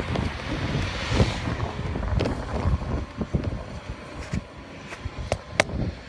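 Strong wind buffeting the microphone in irregular low gusts, with a rushing gust about a second in that eases off later. Two sharp clicks near the end.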